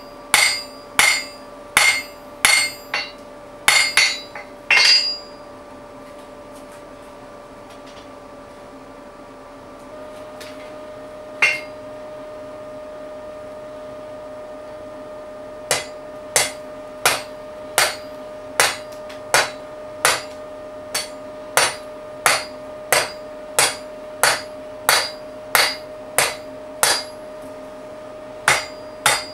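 Hand hammer striking red-hot steel on an anvil, each blow ringing sharply. A quick run of blows in the first five seconds, one lone blow near the middle, then steady, even blows from about two-thirds of the way through, over a steady hum.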